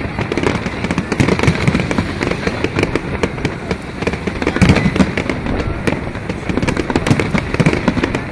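Aerial firework shells bursting one after another, with dense crackling between the booms; the loudest bang comes near the middle.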